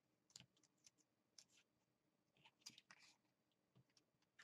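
Near silence with a few faint, short clicks and taps of stiff patterned paper being folded and handled, a small cluster of them about three seconds in.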